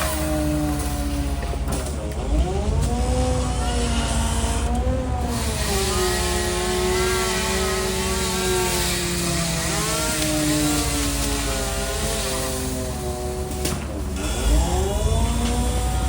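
A motor engine running under changing load, its pitch wavering and twice sagging sharply before climbing back: once about two seconds in and once near the end. A steady low rumble runs underneath.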